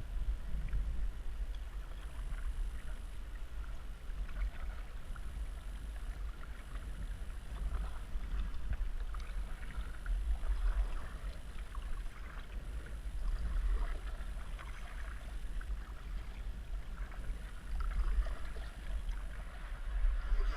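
Kayak paddling: irregular splashes of water from the paddle strokes and hull, with wind rumbling on the microphone.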